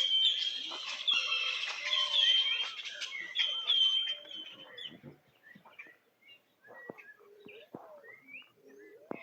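Birds chirping: a high, falling call repeats about twice a second for the first four seconds, then scattered, quieter calls.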